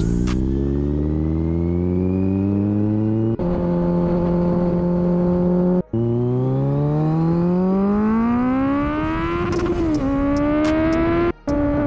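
Kawasaki Ninja 1000's inline-four engine heard from the rider's seat, accelerating with its pitch climbing steadily, holding steady for a couple of seconds, then climbing again for several seconds. The sound breaks off briefly twice, about six seconds in and near the end.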